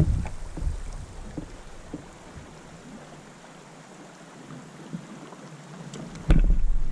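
Quiet river water around a plastic kayak, with a handling thump at the start and a few small knocks while a just-caught spotted bass is held up. Near the end a sudden loud rush and bump cuts in as the fish is lowered to the water.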